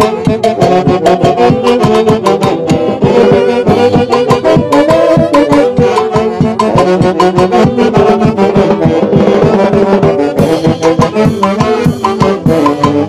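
Dance music led by brass instruments, with held tones over a fast, steady percussion beat.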